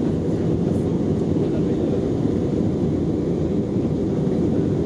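Steady low rumble and rush of cabin noise aboard an Airbus A319 in flight, engine and airflow noise heard from a window seat over the wing.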